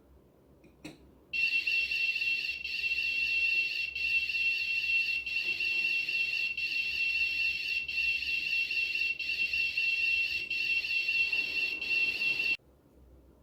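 Piezo buzzer of an Arduino MQ2 smoke-detector circuit sounding its alarm: a high steady tone with a warble, repeating in cycles of a little over a second, which signals that smoke has been detected. A small click comes just before it starts, about a second in, and the alarm cuts off suddenly near the end.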